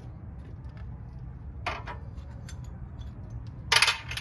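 A few sharp metallic clicks and a short clatter of metal parts being handled, the loudest near the end, over a steady low hum.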